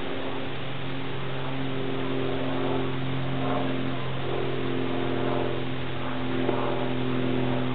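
A steady low motor hum that swells and falls back a few times in the middle.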